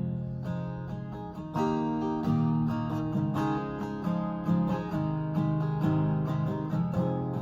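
Acoustic guitar strumming chords in a steady rhythm as an instrumental intro, the chords changing every second or so.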